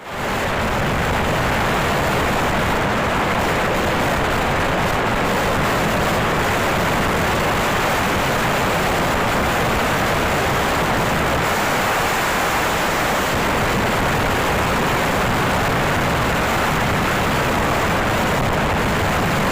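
Steady rushing wind and road noise from a moving vehicle, loud on the microphone.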